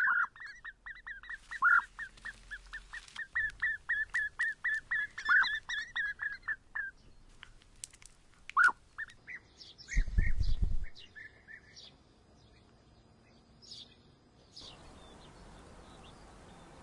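Bee-eater nestlings begging in the nest burrow: a rapid run of sharp chirps, several a second, for about seven seconds, then a few single calls. A low thump comes about ten seconds in, and steady cricket chirping starts near the end.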